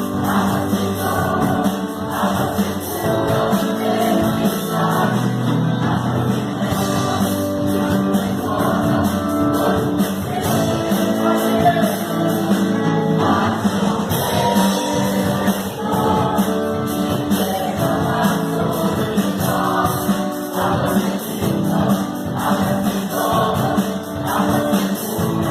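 Choir singing a gospel worship song with instrumental accompaniment and a steady beat.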